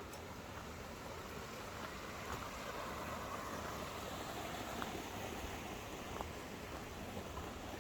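Stream water rushing steadily over rocks, a little fuller about two seconds in, with a few faint ticks.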